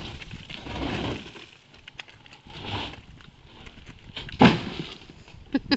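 A large sheet of board being handled and dumped into a steel builder's skip: scraping and shuffling noises, then one loud bang about four and a half seconds in as it drops into the skip.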